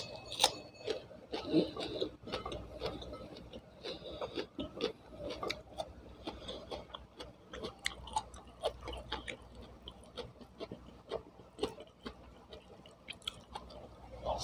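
Close-miked eating sounds: chewing a mouthful of rice with fried tempe and sambal eaten by hand, with many small mouth clicks and smacks, and fingers rubbing and scraping food in a stone mortar.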